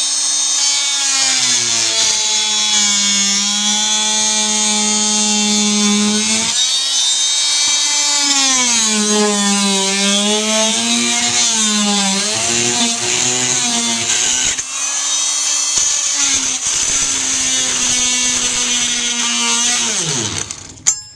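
Oscillating multi-tool running and cutting through a rusty metal corner bead and drywall, its pitch dipping and recovering again and again as the blade is pressed into the work. Near the end it is switched off and winds down with a falling pitch.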